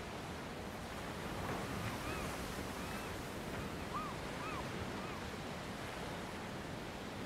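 Sea surf washing steadily against rocks, with some wind. A few short rising-and-falling tones come and go between about two and five seconds in.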